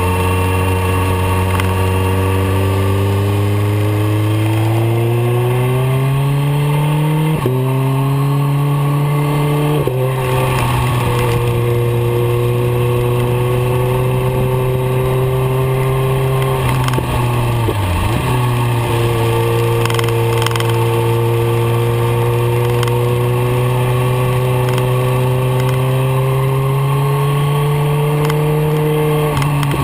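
BMW K1300R motorcycle's inline-four engine heard from on the bike under way, with wind rush. Revs climb for the first seven seconds, then step at gear changes about seven and ten seconds in. It holds a fairly steady pull, drops off the throttle briefly about eighteen seconds in, picks up again, and eases off near the end.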